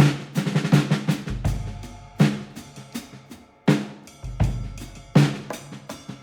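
Drum-led music: a run of hard percussion hits with short pitched ringing, and deep low booms every few seconds.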